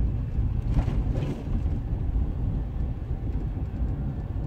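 Steady low rumble of a car's road and engine noise, heard from inside the moving car.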